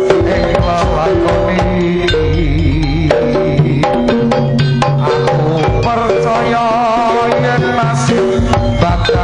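Live Javanese jaranan ensemble playing: quick, busy hand-drum (kendang) strokes over sustained gong tones, with a wavering melody line on top.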